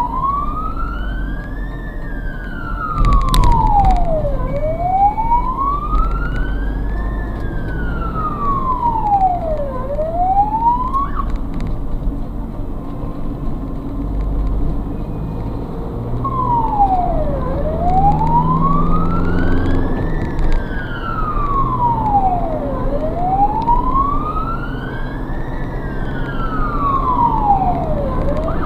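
Hungarian ambulance's wail siren, heard from inside the vehicle, rising and falling slowly about every five seconds; it cuts off about eleven seconds in and starts again some five seconds later. Engine and road noise run underneath, with a single knock about three seconds in.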